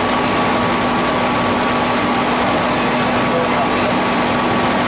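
Spindle veneer peeling lathe running, a steady, unchanging mechanical din with a constant hum.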